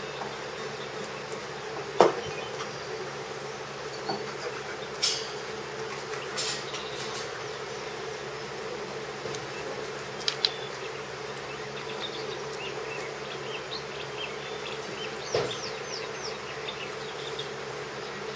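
Puppies scuffling about in wood-shaving bedding over a steady buzzing hum, with a few sharp knocks, the loudest about two seconds in. A few faint high squeaks come just after a knock near the end.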